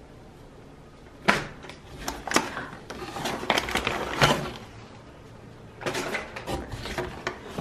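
Soft plastic packs of wet wipes being handled and set down in a cardboard box: plastic and cardboard rustling, with a few sharp knocks.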